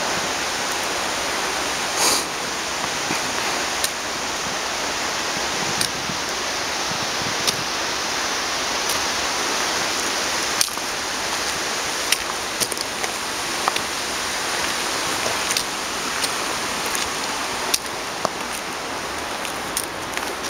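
Steady rushing of running water, an even hiss, with scattered light clicks over it.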